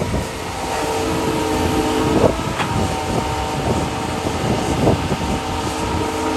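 Heavy diesel earthmoving machinery, excavator and dump truck engines, running steadily with a few sharp metallic knocks about two seconds in and again near five seconds.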